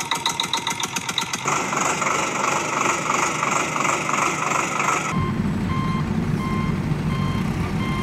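Vehicle engine noise, a rhythmic clatter at first, then steadier; about five seconds in it turns to a low engine rumble with a reversing alarm beeping evenly, about two beeps a second.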